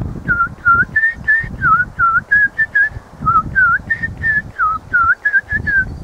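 A person whistling a quick run of about eighteen short notes, several swooping down and back up, at about three a second, mimicking a small songbird's call.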